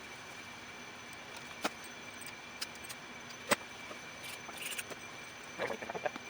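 A few light, sharp clicks and taps of small parts or tools being handled, the clearest about three and a half seconds in, over a steady background hiss with a faint hum.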